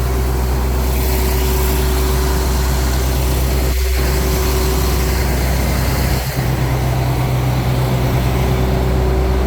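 Farm tractor engine running steadily at an even speed, with the sound dipping briefly once near the middle.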